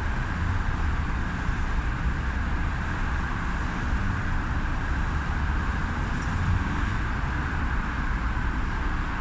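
Steady road traffic noise from a busy junction: the mixed sound of car and bus engines and tyres, with no single vehicle standing out.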